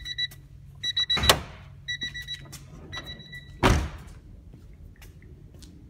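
Honda Civic's warning chime beeping about once a second, four times, with an open door; a sharp clunk about a second in, typical of the hood release being pulled, and a heavy thud near four seconds, the car door shutting, after which the chime stops.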